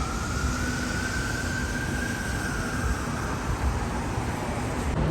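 Steady low rumble of a running vehicle, with a faint whine that rises and then falls over the first few seconds.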